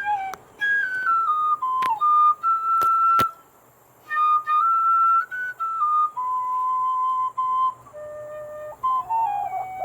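CPVC tin whistle in high D with a 3D-printed fipple, playing a tune of clear single notes that mostly step downward in short runs, with a short pause a little after three seconds in. A few sharp clicks sound between about two and three seconds in.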